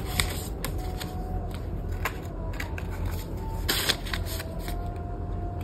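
Banknotes and a plastic zip pouch being handled: crisp rustling and crinkling of paper and plastic with small clicks, over a low steady hum.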